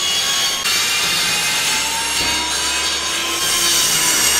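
Table saw running and cutting through a fibreboard sheet: a steady, loud saw noise as the blade rips a 50 cm piece off the board.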